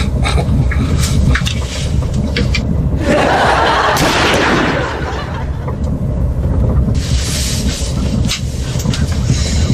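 A man snoring heavily in snorting surges, the biggest a few seconds in, over the steady low rumble of a train carriage.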